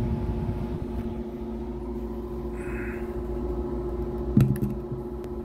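A steady low hum, then about four seconds in a loud mechanical clunk and a few lighter clicks as the play key of a Sony WM-D6 Professional cassette Walkman is pressed down and its tape transport engages.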